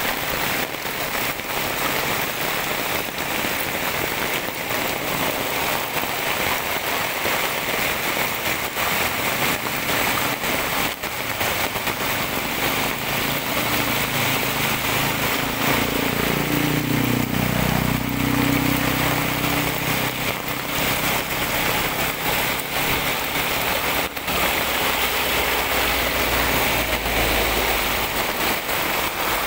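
Heavy typhoon rain pelting a wet asphalt road and the runoff flowing across it, a steady dense hiss of drops. About halfway through, a car's engine rumbles close by for roughly a dozen seconds, then fades near the end.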